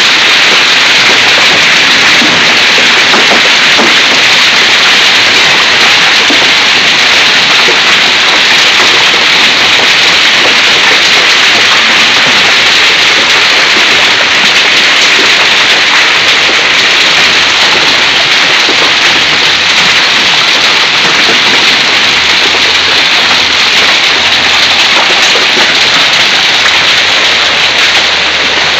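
Heavy rain and hail pelting pavement and lawn: a loud, steady hiss of falling water with a dense patter of hailstone impacts.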